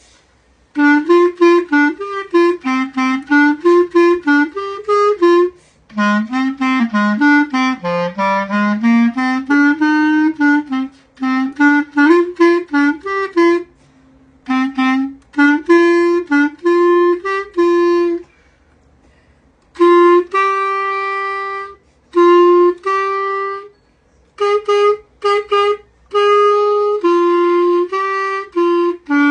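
Unaccompanied solo clarinet playing a show-tune melody in phrases, breaking off for a breath every few seconds, with the longest pause, over a second, about two-thirds of the way through.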